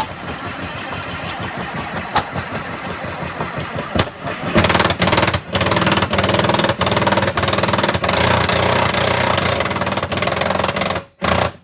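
Under-floor spare tire winch being cranked to raise the spare, a rapid, continuous mechanical ratcheting that grows louder about halfway through and cuts off suddenly near the end.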